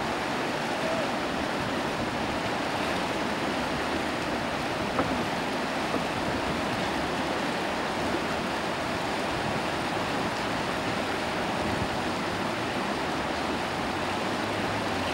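Steady rush of the Danube flowing fast and churning around the collapsed steel spans of a bridge.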